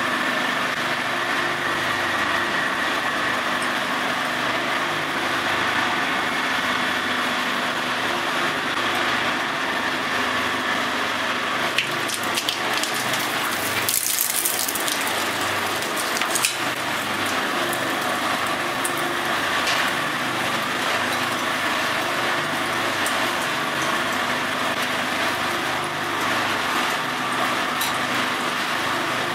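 Twin-shaft industrial shredder running steadily. A few sharp cracks and a brief loud grinding burst come about halfway, as a plastic doll is caught between the cutter discs.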